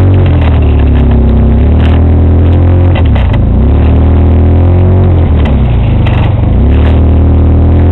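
Side-by-side UTV engine revving up and down over and over with the throttle on a rough trail, about seven rises and falls, over a steady low engine drone.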